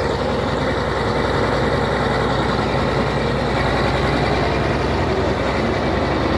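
Komatsu D80A bulldozer's six-cylinder diesel engine running steadily, a loud, even, low-pitched engine sound.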